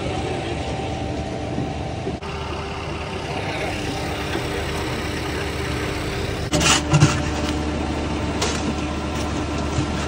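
Heavy truck engine running steadily, the concrete mixer truck's and pump's machinery at work. A few sharp clanks stand out about two-thirds of the way through.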